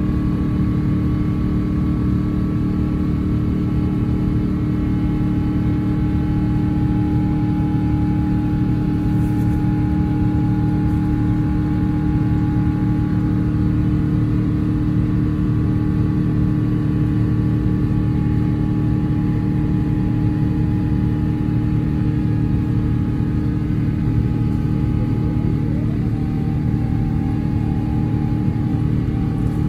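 Steady airliner cabin noise inside an Airbus A350-900 climbing out after takeoff: a constant low rumble of airflow and Rolls-Royce Trent XWB engines, with a few steady humming tones above it.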